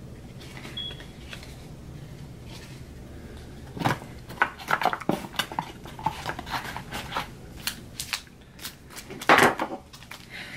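A pack of trading cards being handled and opened: a run of crinkles, clicks and taps that starts about four seconds in and is loudest near the end, after a few seconds of low steady hum.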